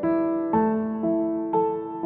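Background music: gentle notes struck about every half second, each ringing and fading until the next.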